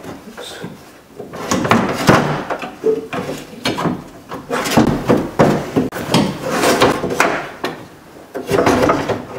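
A steel power window regulator and motor assembly clattering and scraping against the door's inner sheet metal as it is worked out through the access hole, in a run of irregular knocks and rattles.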